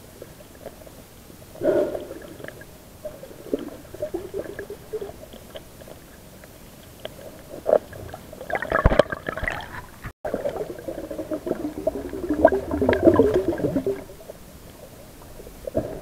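Muffled underwater gurgling and bubbling, heard through a submerged camera, in irregular bursts: a short one about two seconds in, a louder one near the middle and a longer stretch later on, over a low steady hiss.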